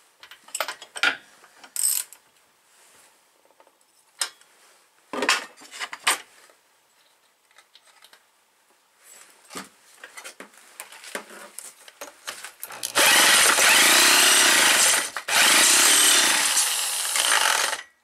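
Scattered clicks and clatter of tools being handled. About 13 seconds in, an electric drill runs loud, spinning the McCulloch 250 chainsaw's engine over through its starter. It runs in two long bursts with a short break between them.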